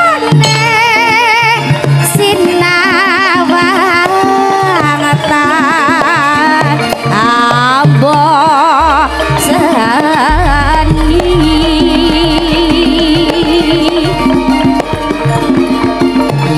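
Javanese gamelan music with kendang hand drums keeping a repeating beat under a high melody that wavers with heavy vibrato. About ten seconds in, a deep low note comes in and holds.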